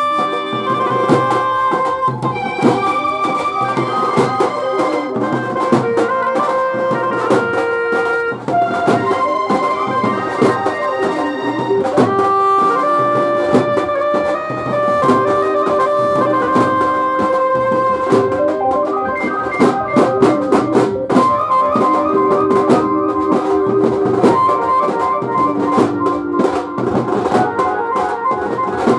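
Instrumental music: held melody notes over a steady drum beat.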